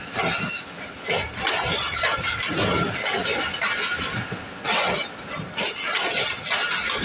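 Pakistan Railways passenger coaches rolling past a platform as the train pulls in. The wheels clatter and clank over the rail joints with many sharp metallic clinks.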